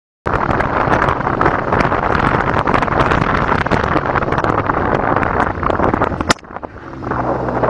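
Loud, rough wind noise buffeting the microphone, with crackling throughout. It cuts off suddenly after a sharp click about six seconds in. A lower, steady engine hum follows near the end.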